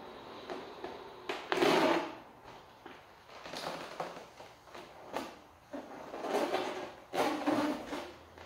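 A latex party balloon being blown up by mouth: several breathy blows into it, the loudest about a second and a half in, with short rubbery squeaks and clicks from the stretched latex in between.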